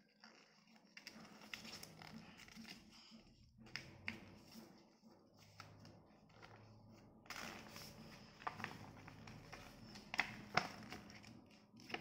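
A sheet of paper being folded and creased by hand: soft rustling broken by crisp crinkles and crackles, with the sharpest few coming in a cluster about ten seconds in.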